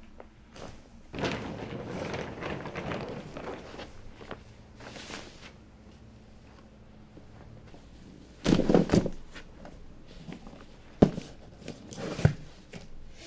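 Handling noises as things are moved about: a stretch of rustling starting about a second in, a louder scuffle later, then a sharp knock and a thump as objects are set down.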